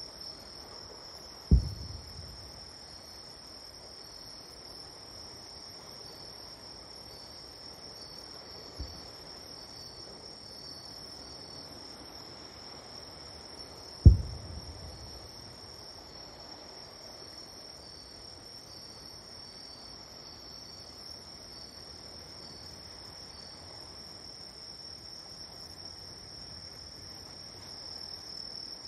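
Distant fireworks bursting as low booms, each with a short rumbling tail: a loud one about a second and a half in, a faint one near the middle and another loud one about halfway through. Under them runs a steady high trill of insects.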